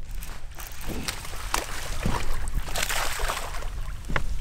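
Water splashing as a hooked bass thrashes and leaps at the surface beside a boat, with a few sharp knocks along the way and a denser splashing stretch past the middle.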